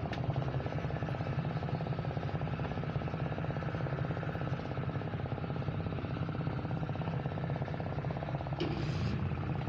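A small engine idling steadily: a rapid, even putter.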